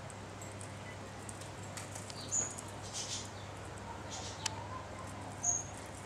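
An Australian magpie flapping its wings as it hangs from a peg on a clothesline, with two short high squeaks and a sharp click.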